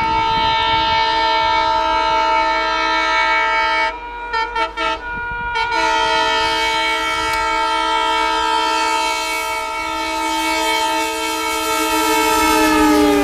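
ALCO diesel locomotive's multi-tone horn sounding long, with a few short broken blasts about four to five seconds in before it is held again. Near the end its pitch slides down as the locomotive passes close by.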